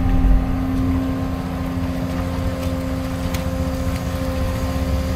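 Cat 335 excavator's diesel engine and hydraulics running, heard from inside the cab, with a steady whine over the engine rumble as the bucket digs. Louder for the first half second, then easing to an even level.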